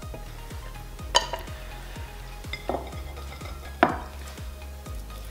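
Three sharp clinks of hands knocking the ceramic plates about one, two and a half, and four seconds in, as orange zest is picked up and rubbed into a raw duck's skin. Background music with a steady beat plays underneath.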